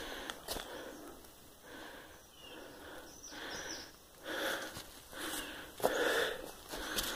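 A person breathing hard close to the microphone while climbing, the breaths coming about once a second, with a few sharp clicks and knocks and two faint high chirps a little past three seconds in.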